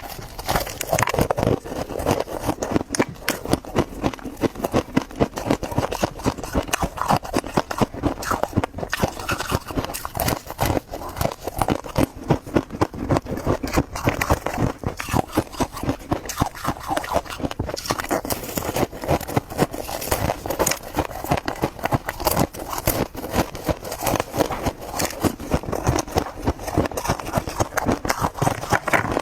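Freezer frost being bitten and chewed: dense, continuous crunching and crackling, many small cracks a second with no pauses.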